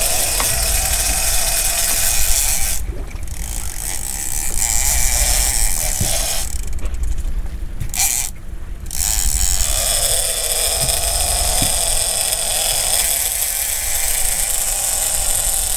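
Fishing reel drags buzzing as line is pulled off by hooked bluefin tuna, with the buzz stopping and starting again a few times between about three and nine seconds in.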